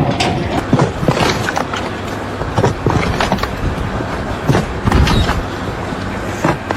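Machinery running with a steady low hum under frequent irregular knocks and clatter.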